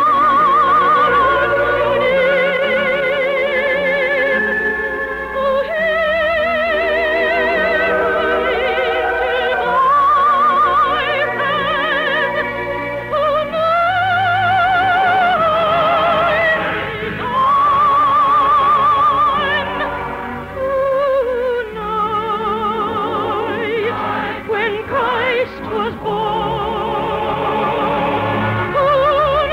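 Operatic soprano singing a Christmas song over orchestral accompaniment, holding long notes with a wide, even vibrato. The sound is the narrow, dull-topped band of an early-1950s radio recording.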